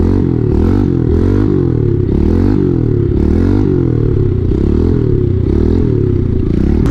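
Kawasaki KLX110 pit bike's small single-cylinder four-stroke engine revving up and down under the rider's throttle. Its pitch rises and falls over and over, about every two-thirds of a second.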